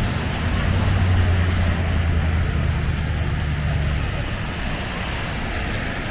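City street traffic: a motor vehicle's engine running nearby with a low steady hum for the first few seconds, then fading, over a continuous hiss of traffic and wind.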